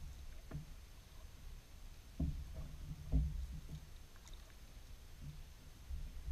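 Canoe paddling: a paddle dipping and pulling through shallow water, quiet overall, with a few dull low knocks, the loudest about two and three seconds in.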